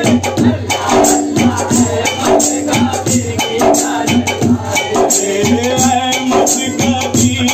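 A man sings a devotional song into a microphone with long held notes, over a quick, steady beat of rattling hand percussion.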